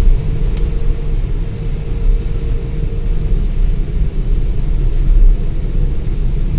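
Steady low rumble of a car driving on a rain-soaked road, heard from inside the cabin, with a light hiss of tyres and rain over it and a single faint click about half a second in.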